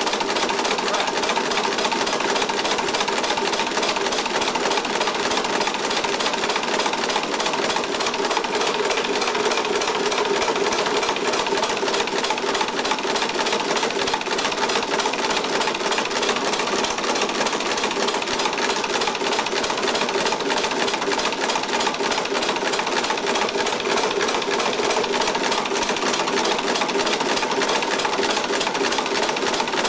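Homemade two-stage compressed air engine, built from an old two-stage air compressor, running steadily with a fast, even mechanical clatter. The clatter comes from heavy valve springs rattling the valves against the cams.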